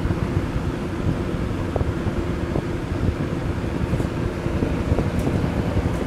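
1980s Lakewood P-223 box fan running on high speed: a steady rush of air over a low, steady hum.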